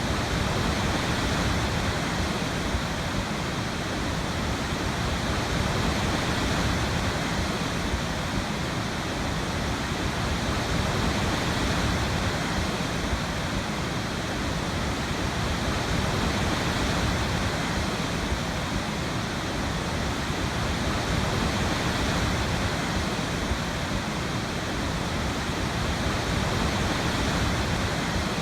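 Waterfall: steady rushing of falling water, with slow gentle swells in loudness.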